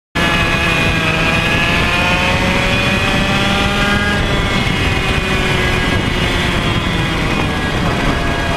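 Mini ROK kart's 60cc two-stroke engine at high revs, heard onboard over wind noise. Its pitch falls slowly over several seconds as the revs drop, then holds steady near the end.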